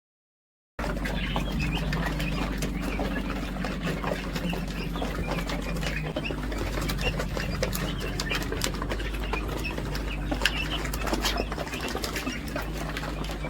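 A flock of chickens in a poultry house, wings flapping and birds calling in short chirps over a steady low hum, starting abruptly about a second in.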